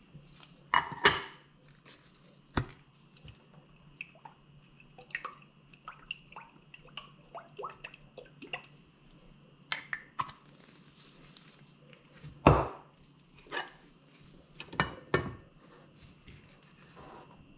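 Kitchen handling sounds: knocks and clinks of a glass pot lid and a glass oil bottle being set down and picked up. Oil is poured from the bottle into a pot of rice with small dripping ticks, and the lid goes back on the pot near the end. A faint low hum runs underneath.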